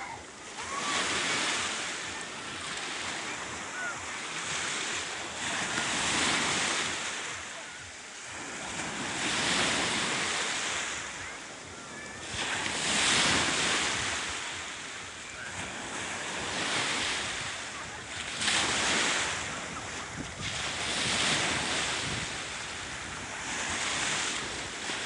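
Sea waves washing in, swelling and falling back in surges every three to five seconds.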